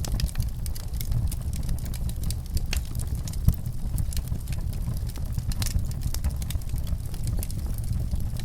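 Wood fire burning in a fireplace, crackling with irregular small pops over a steady low rumble, and one louder pop about three and a half seconds in.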